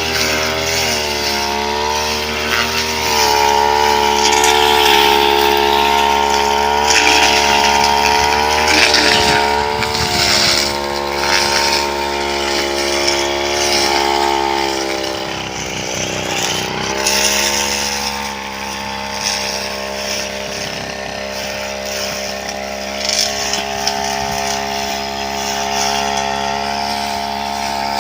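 Brush cutter engines running hard while cutting through thick brush, the pitch rising and falling with the throttle and load and dipping briefly about halfway through.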